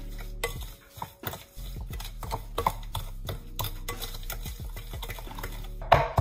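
Raspberries and sugar being stirred and mashed with a wooden rolling pin in a glass bowl: irregular knocks and scrapes of wood against glass and fruit.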